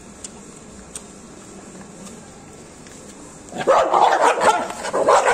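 Street dogs barking and yelping at close range, breaking out suddenly about three and a half seconds in after a quiet stretch, in short sharp calls.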